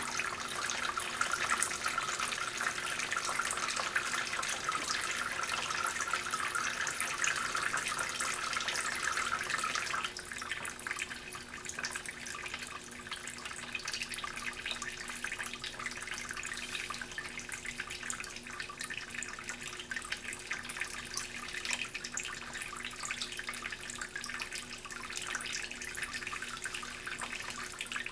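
Hot water streaming out of the spray heads of two Bunn commercial coffee brewers, one with a lime-clogged spray head that runs weaker and slower. About ten seconds in, the sound drops and thins as one stream stops, and the weaker flow carries on.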